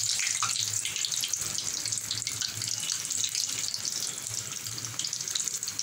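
Breaded chicken-and-potato chops deep-frying in hot oil in a wok: a steady sizzle of bubbling oil.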